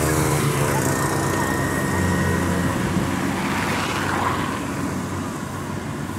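Kubota DC-70 combine harvester's diesel engine running steadily, with a faint high whine about a second in.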